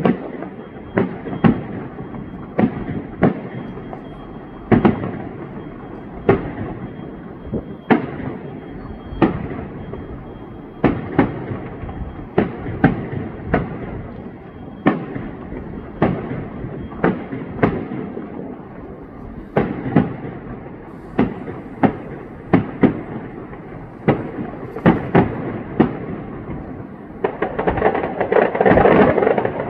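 Aerial fireworks shells bursting one after another: sharp bangs about one to two a second, each trailing off briefly. Near the end a louder, denser rush of noise lasts about two seconds as a large gold burst goes off.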